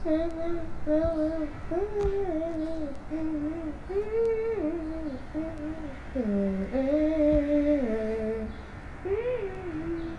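A young child's voice singing a melody in short phrases of held notes that slide up and down, heard from an old voice-memo recording made in a small room.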